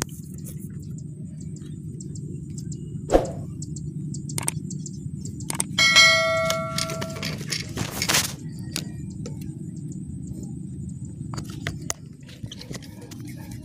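A bright metallic ding that rings for about a second and a half, followed shortly by a brief rushing burst, over a steady low rumble with scattered clicks.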